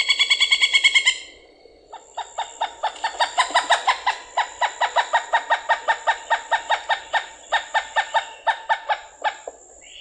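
Pileated woodpecker giving its laughing call: a quick, loud run of notes in the first second, then after a short pause a long series of evenly repeated notes, about six a second, that swells and then fades near the end.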